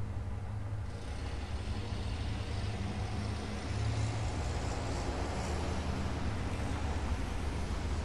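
Inside a moving car's cabin: a steady low engine hum under a hiss of tyre and road noise. About a second in, the higher road hiss gets louder and stays there.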